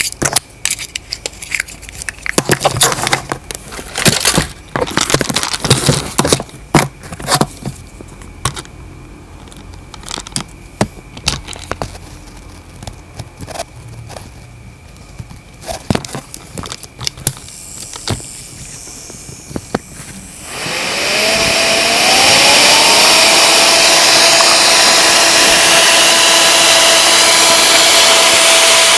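Plastic clicks and knocks of handling a small device, then about two-thirds of the way in a mini air conditioner's fan switches on: its whine rises in pitch as it spins up and settles into a loud, steady rush of air.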